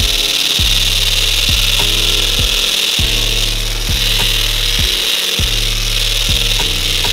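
A power tool running under load, cutting with a steady harsh hiss that eases briefly a little under four seconds in, over background music with a regular beat.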